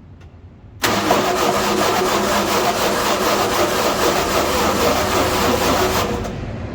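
Grimmer-Schmidt air compressor's 302 cubic inch Ford V8, half its cylinders making power and half making air, being started after sitting for months. A sudden loud run of cranking and firing about a second in lasts about five seconds, then drops to a lower, steadier running sound near the end.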